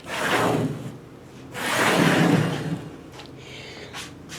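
Two noisy handling sounds, like something being slid or moved, the first right at the start and the second, longer one about a second and a half in.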